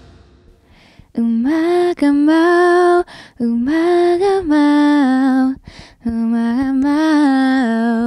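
A woman singing a slow, gentle melody solo, in three long phrases of held notes that step up and down in pitch.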